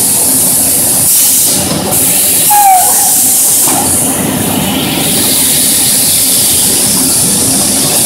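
Circle-grinding machine for metal discs running: motor, belt drives and grinding heads make a loud, steady mechanical noise with a continuous high hiss. A short squeal comes about two and a half seconds in.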